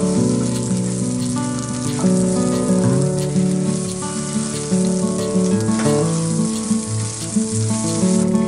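Garlic cloves, shallots and dry red chillies sizzling as they fry in oil in a nonstick pan, stirred with a silicone spatula, with a few small pops. Background music of plucked notes plays over the sizzle.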